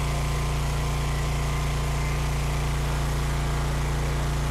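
The 15 HP 420cc single-cylinder gas engine of a homemade 4 GPM pressure washer running steadily under load, with the hiss of water spraying from the gun's nozzle onto concrete.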